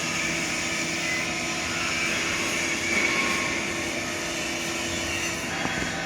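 Electric backhoe loader running: a steady mechanical hum with a higher whine over it.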